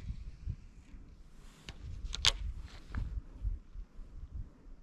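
Wind rumbling unevenly on the camera microphone, with a few short sharp clicks from handling the fishing rod and reel, the loudest about two seconds in.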